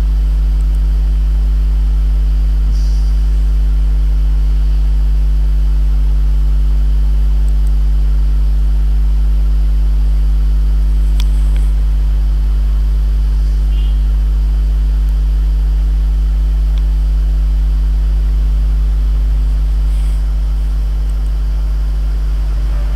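Loud, steady electrical mains hum picked up in the recording, a deep drone with a ladder of higher hum tones above it. Once or twice a faint click sounds over it.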